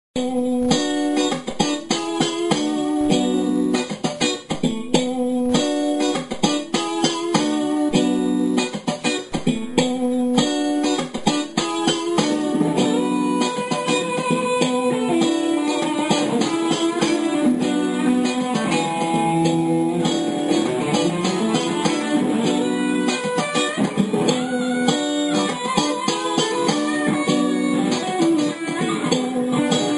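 Electric guitar played through a Boss GT-10 multi-effects and looper: a choppy, repeated strummed chord pattern, with sustained single-note lines played over it from about twelve seconds in.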